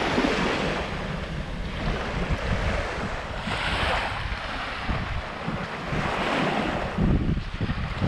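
Waves washing up on a beach, the hiss of the water swelling and fading about every three seconds, with wind buffeting the microphone.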